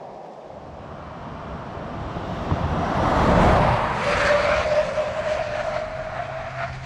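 2023 Ford Ranger Wildtrak's 3.0-litre turbo-diesel V6 under acceleration. The engine and road noise swell to a peak about three and a half seconds in, then ease into a steady whine that climbs gently in pitch before cutting off suddenly.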